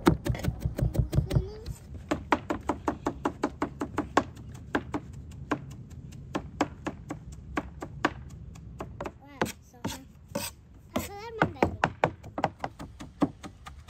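Heavy cleaver chopping red onion on a wooden cutting board: quick, even knocks about four a second, thinning out over the last few seconds. A voice calls out briefly a little past the middle.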